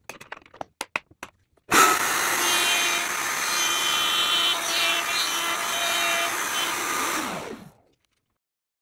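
A few sharp clicks as clamps are set, then a router mounted on a PantoRouter joinery machine starts about two seconds in and runs steadily for about six seconds, cutting a slot mortise into the edge of a hardwood lid. Near the end it is switched off and winds down, its pitch falling.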